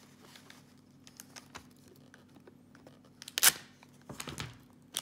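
Clear plastic and packing tape handled by hand: soft rustling and small clicks, with one short, loud crinkling rip about three and a half seconds in.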